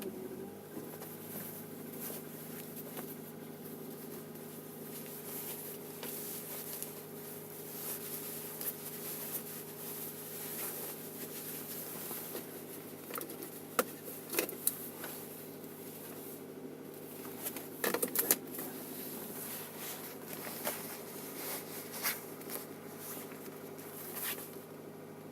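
Kia Ceed (second generation) engine idling steadily on a cold start, with a few sharp clicks in the middle stretch; the owner is recording a knock that shows up on cold starts.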